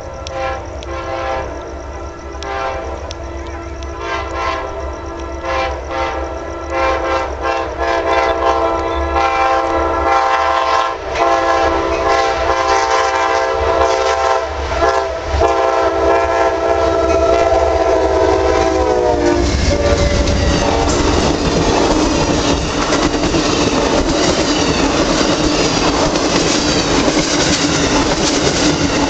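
Locomotive air horn sounding a long multi-note chord with brief breaks, as in a horn show. About two-thirds through, the chord slides down in pitch and stops, and the passing train's wheels then click and rumble steadily over the rail joints.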